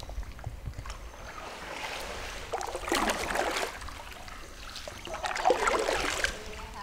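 Paddle strokes in calm lagoon water: two spells of splashing and dripping, about two and a half seconds apart.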